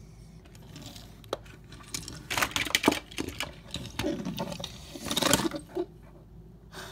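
Small plastic toy cars rattling and clattering against each other and a hard surface, in two busy bursts about two and five seconds in, with scattered clicks between.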